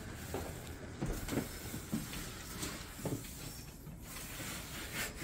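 Hand trowel spreading and smoothing a fairly dry mortar bed on the floor, a series of short scraping strokes about one a second.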